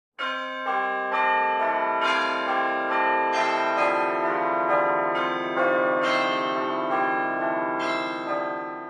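Church bells ringing a peal: overlapping struck bells, a new strike about twice a second, cutting off suddenly near the end.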